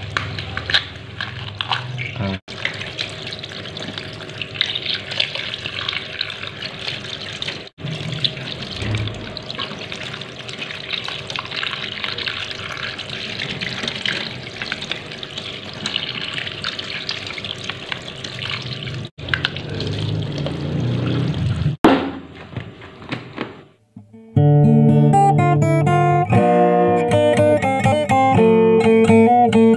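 Water running from a kitchen tap and splashing over a crab and hands into a stainless steel sink: a steady rushing noise that breaks off briefly a few times. About 24 seconds in, it stops and loud guitar music begins.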